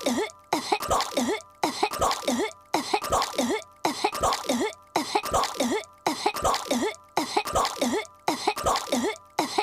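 A cartoon girl's voice hacking and coughing as if choking on swallowed gum. The same short fit of three or four coughs repeats as a loop about once a second.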